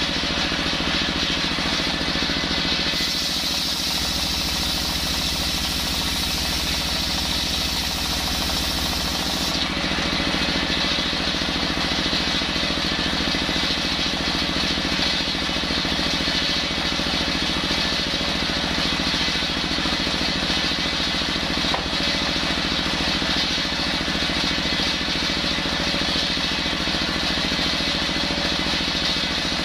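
A stationary single-cylinder diesel engine runs steadily, driving a bench circular saw blade. From about 3 to 9 seconds in, a harsher hiss joins the running sound as the blade cuts through coconut wood; after that the blade spins without a cut.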